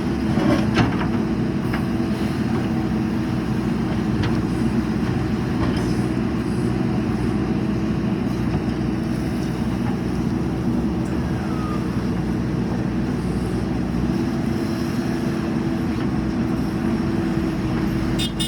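Diesel engine of a JCB 3DX backhoe loader running steadily, with a few knocks in the first second.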